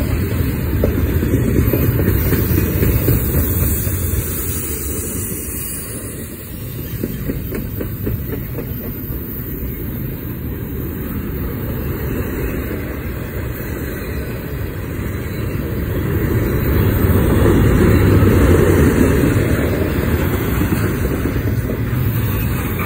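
Double-stack container well cars of a CSX freight train rolling past: a steady rumble of steel wheels on rail, with a rapid clatter of clicks. It grows louder about two-thirds of the way through.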